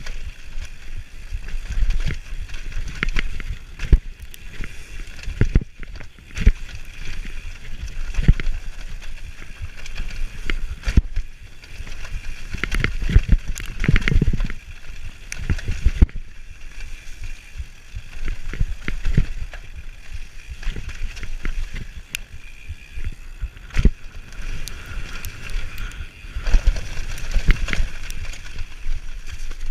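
Mountain bike descending a dirt forest trail at speed: tyres running over the ground with frequent sharp knocks and rattles of the bike over bumps, picked up by a handlebar-mounted GoPro.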